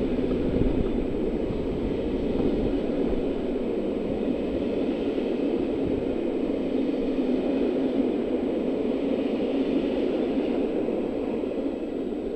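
SNCB passenger train's coaches running past on the rails, a steady rumble of wheels on track. It begins to die away at the very end as the last coach clears the platform.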